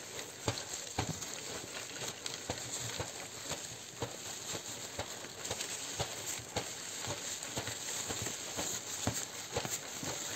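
Classroom objects knocked, tapped and rattled by hand to imitate nature sounds: irregular clicks and knocks, a few a second, over a steady hiss.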